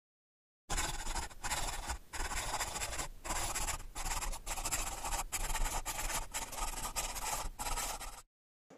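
Scribbling on paper: a writing tool scratching in long strokes with short breaks between them. It starts under a second in and cuts off shortly before the end.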